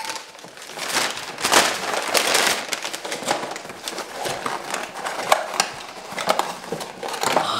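McDonald's paper and cardboard food packaging rustling and crinkling as it is handled and opened, with many small crackles and clicks.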